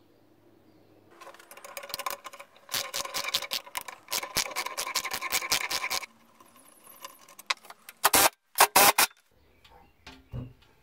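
Socket ratchet wrench clicking in quick runs as a bolt on a drill press's base is turned. Later come three short, loud knocks.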